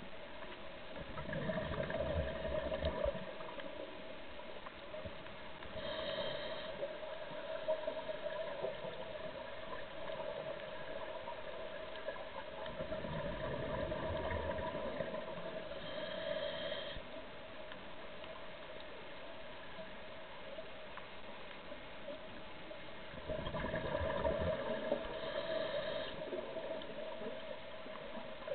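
Scuba diver breathing through a regulator, heard underwater: three slow breaths, each a gurgling, rumbling rush of exhaled bubbles with a short hiss of inhalation through the regulator. A steady faint hum runs underneath.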